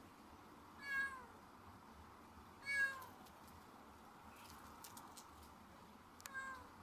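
Domestic cat meowing three times, each meow dropping in pitch at the end; the second is the loudest, the third comes near the end.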